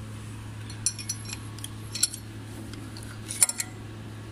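Light metallic clinks and taps of steel compressor gearbox parts being handled and fitted by hand: a few scattered clinks, with a small cluster about three and a half seconds in, over a steady low hum.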